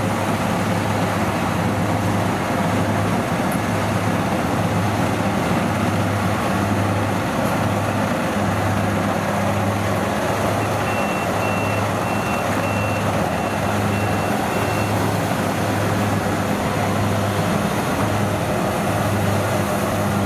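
Rice combine harvesters, a Kubota DC60 among them, running steadily while cutting and threshing rice, with a regular low throb about once a second. A short series of high warning beeps sounds from about 11 to 15 seconds in.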